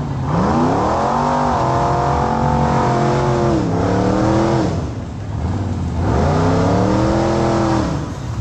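High-horsepower engine of a big-tire off-road vehicle revved hard twice. Each time the pitch climbs, holds at high revs for a few seconds, then drops back, with a short lull between the two revs.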